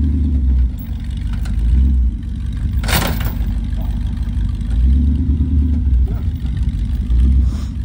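An old pickup truck's engine revving in repeated surges as the truck strains forward against a line tied to a tree, pulling on its rear bumper. There is a brief sharp clatter about three seconds in.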